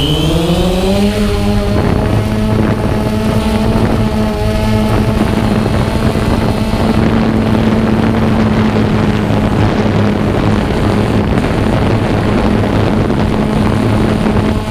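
Xiro Explorer quadcopter's motors and propellers whirring, rising in pitch over the first second or two and then holding steady, with wind buffeting the microphone.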